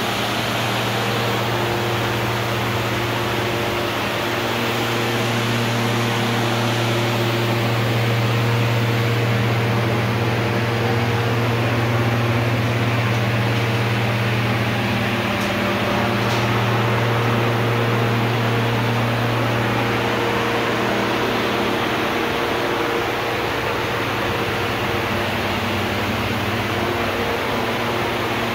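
Paint spray booth ventilation fans running: a steady rush of air with a strong low hum and a few faint steady tones above it.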